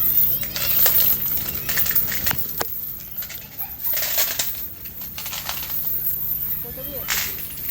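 A scattering of sharp clicks and clinks at irregular intervals.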